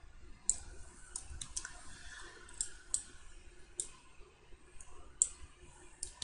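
Faint, irregular clicks of a computer mouse and keyboard, about ten in all, spread unevenly over a low background hum.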